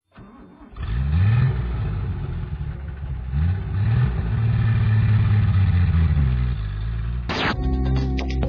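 Van engine sound effect revving up twice, then running steadily. Near the end a sudden sharp hit cuts in and music begins.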